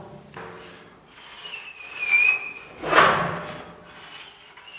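Felt-tip marker squeaking as it is drawn across the rusty steel of a cut-down drum, followed about three seconds in by a short scraping rub.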